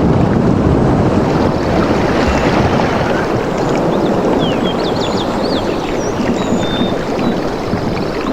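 Steady rushing of water, with birds chirping in short, quick whistles over it, more of them from about halfway through.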